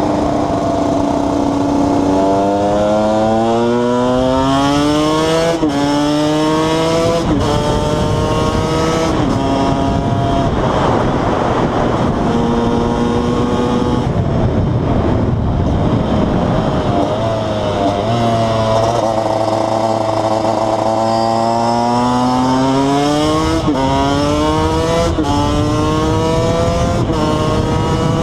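KTM 125 EXC two-stroke single-cylinder engine pulling up through the gears, its pitch climbing and dropping sharply at each of three upshifts. Midway it eases off to a lower, steadier note, then accelerates again and shifts up three more times.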